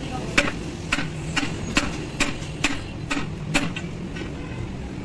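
Hand hammer striking a heated steel truck tie rod end clamped in a vise, about nine sharp metallic blows at roughly two a second, stopping near the end, over a steady background noise.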